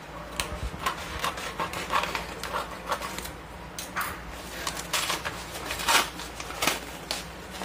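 Scissors snipping through a kraft paper mailer envelope, then the stiff paper crinkling and rustling in irregular crackles as it is torn and pulled open by hand.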